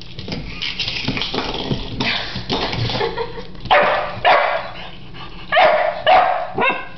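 A dog barking at a piece of sushi that it dislikes: about five short, loud barks in the second half, coming in pairs. Before them come quieter scratchy clicking noises.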